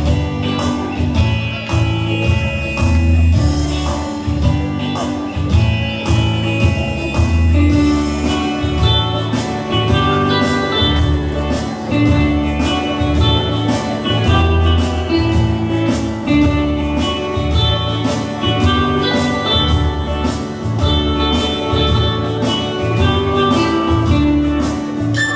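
Song music with a steady beat and a strong bass line.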